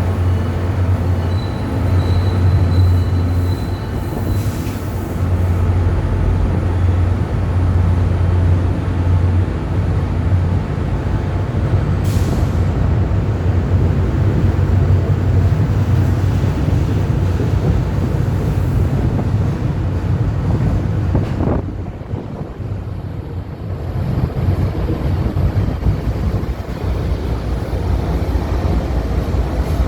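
A GP40MC diesel-electric locomotive and its train passing close by, a steady heavy low rumble of engine and wheels on rail. A thin high squeal, most likely from the wheels, rings for a couple of seconds near the start, and the rumble dips briefly about two-thirds of the way through.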